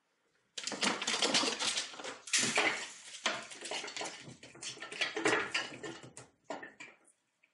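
A cat in an epileptic seizure, thrashing on a tiled floor: a loud, dense clatter of claws and limbs scrabbling and knocking on hard surfaces. It starts suddenly about half a second in and breaks up into a few separate knocks near the end.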